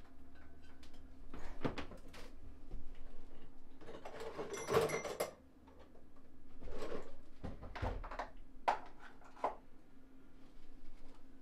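Scattered clinks, knocks and rattles of hand tools and metal parts as an engine is worked on in an ATV frame, with a longer clattering burst about four seconds in.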